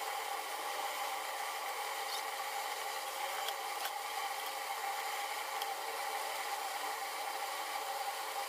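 Steady background hum and hiss, with a few faint light clicks as the laptop keyboard plate is handled and pried at.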